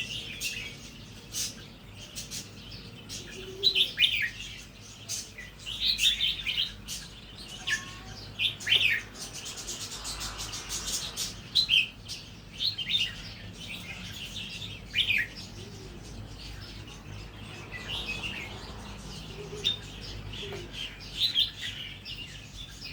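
Red-whiskered bulbul singing short, bright warbled phrases, repeated every second or two, in the natural (wild-type) song style. Sharp clicks are scattered among the phrases.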